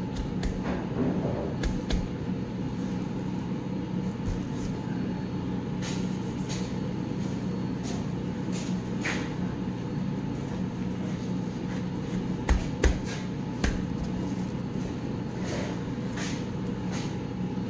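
Dry rub being shaken from a plastic shaker onto a pork butt: scattered short rattles and taps over a steady machinery hum, with three sharper knocks about two-thirds of the way through.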